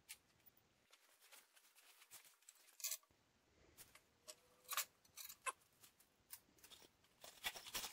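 Faint, scattered metallic clicks and taps as bolts and nuts are handled on an aluminum mounting bracket, over near-silent room tone.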